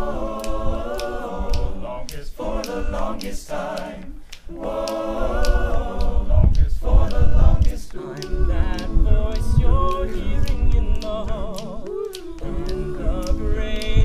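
Male a cappella group singing in close harmony, a solo lead voice carrying the melody over the others' backing vocals.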